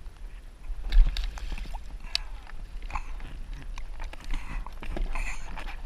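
Irregular knocks, clicks and small splashes from landing a hooked yellowtail alongside a plastic kayak, with the loudest knock about a second in.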